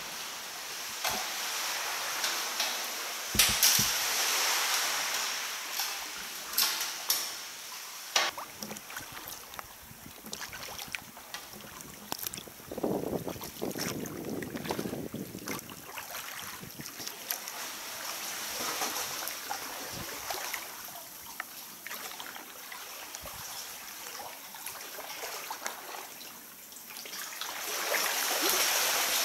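Sea water sloshing and lapping around a sea kayak inside a sea cave, with sharp splashes and knocks now and then. A fuller, lower rush of water comes about halfway through, and the water noise swells again near the end.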